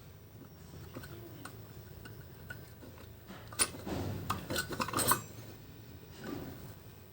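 Metal tools and small vacuum-cleaner motor parts clinking and knocking as they are handled, with a cluster of sharp clicks about halfway through.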